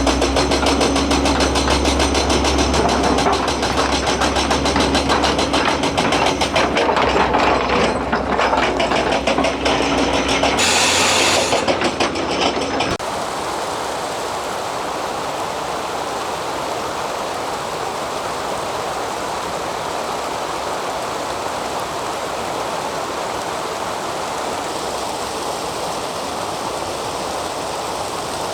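Hyundai 290LC-7A excavator working: diesel engine running under load with a fast, dense rattle. About thirteen seconds in the sound changes abruptly to a steady, even rushing noise.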